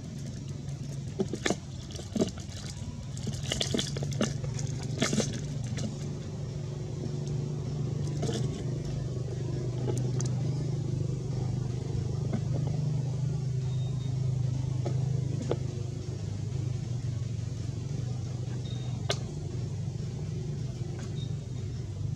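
Steady low engine hum that grows louder a few seconds in and eases near the end, with a scatter of sharp clicks in the first few seconds.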